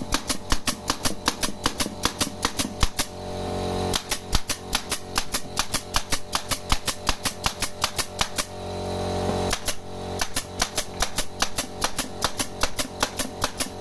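Pneumatic air nailer firing nails into wood in quick succession, about four or five sharp shots a second, in runs with a pause about two thirds of the way through. Background music with guitar plays underneath.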